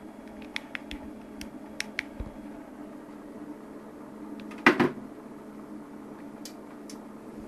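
A steady low electrical hum with light clicks scattered through it, and one short louder noise a little past halfway.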